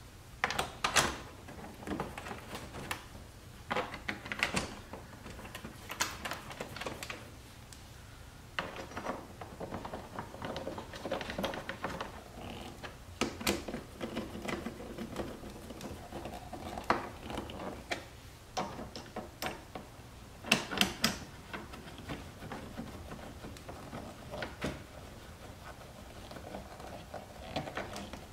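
Screws being started and driven by hand into the underside of a C7 Corvette's rear bumper: faint, irregular clicks and small scrapes from the tool and fasteners.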